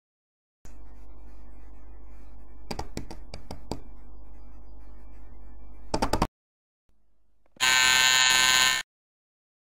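A talent-show rejection buzzer sounds once for about a second near the end, a harsh, bright buzz, marking a judge's red X. Before it comes a low steady hum with a quick run of clicks about three seconds in and a few more around six seconds.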